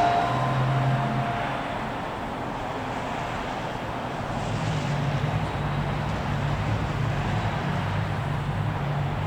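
The last chime note from a Whelen WPS-2906 siren fades away in the first second or so, then road traffic: cars passing with engine hum and tyre noise.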